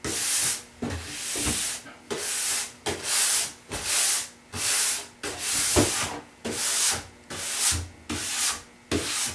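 Hand brush scrubbed in quick strokes along a snowboard's plastic base, about one and a half strokes a second, each a scratchy swish. It is sweeping old wax dust out of the base before waxing.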